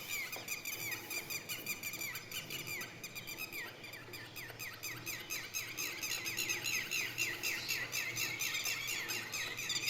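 Bird chirping: a string of short, repeated notes, each sliding down in pitch, which come faster and louder from about four seconds in.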